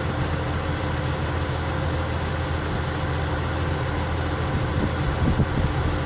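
A steady low engine hum, like an idling diesel, with a few light clicks about five seconds in.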